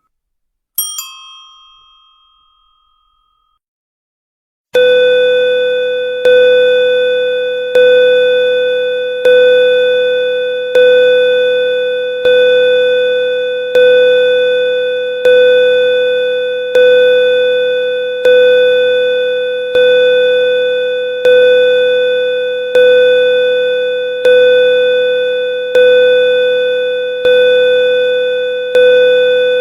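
A small high-pitched bell struck once, ringing away over about two seconds. A few seconds later a lower bell starts tolling, one strike about every second and a half on the same pitch, each ring fading partly before the next.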